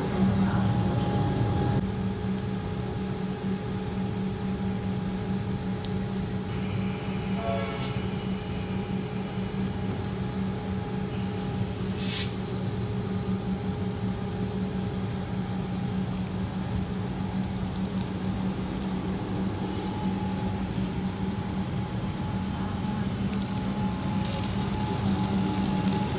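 Melbourne suburban electric trains at a station: a steady electric hum from a standing train. A passing train's rumble fades in the first two seconds, a short hiss comes about twelve seconds in, and a Comeng electric train runs in along the platform near the end.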